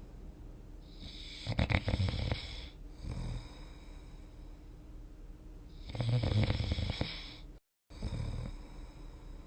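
A person snoring while dozing: two loud snores with a fluttering rattle, about a second and a half and six seconds in, each followed by a softer breath. A brief dropout to dead silence comes just before the second breath.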